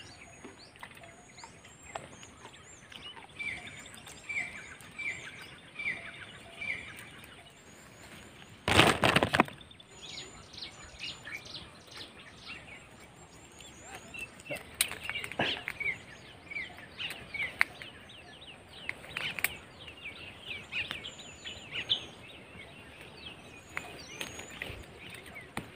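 Small birds chirping repeatedly, with a run of about five short falling chirps a few seconds in. Scattered clicks and rustles come from thorny jackal jujube branches being handled as the fruit is picked, and a brief loud rustle about nine seconds in.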